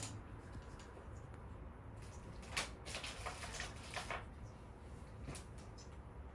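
Faint rustling and scuffing as a small puppy moves about on a paper puppy pad: a run of soft crinkly scuffs from about two and a half to four seconds in, and one more a second later.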